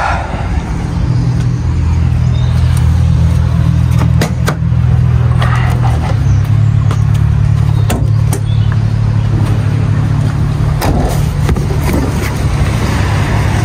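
A vehicle engine idling steadily, its pitch shifting slightly about six seconds in, with several sharp clicks and knocks over it.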